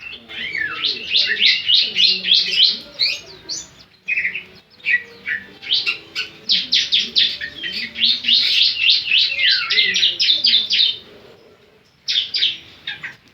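Bar-winged prinia (ciblek) singing: long, rapid runs of sharp, high chipping notes, several a second, in bursts of a few seconds with short pauses between them.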